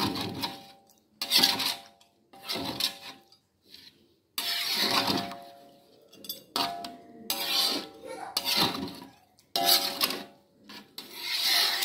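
A spatula scraping and stirring through chicken in coconut-milk curry in a wok: a run of strokes about once a second, one longer stroke near the middle, each with a faint metallic ring from the pan.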